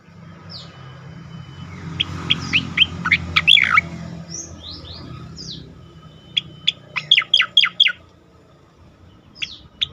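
A cucak koreng singing loudly in bursts of quick, sharp, downslurred whistled notes, one burst about two seconds in and another about six seconds in, with a low hum underneath.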